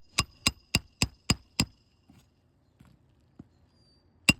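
Roofing hammer striking a steel roof snake to drive a roofing nail under a shingle. Seven quick blows, each with a short metallic ring, then a pause, and a new blow just before the end.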